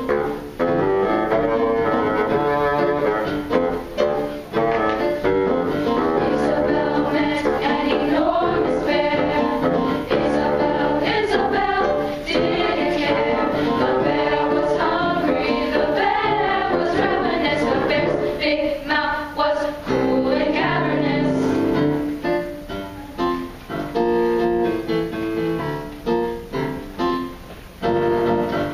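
Junior high girls' choir singing. In the last third the singing breaks into short, clipped phrases with brief pauses between them.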